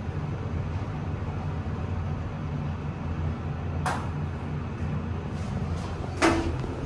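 Otis Gen2 Regen lift car running down with a steady low hum inside the car. A click comes about four seconds in as it arrives at the floor, then a louder, brief ringing clack near the end as the sliding doors open.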